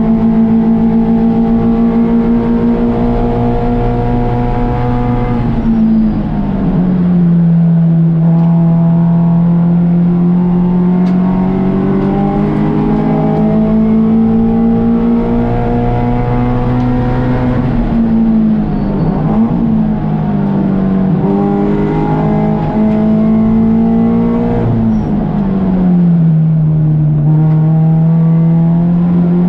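Race car engine running hard under load, its pitch climbing slowly and then dropping sharply three times, about five seconds in, about eighteen seconds in and near the end.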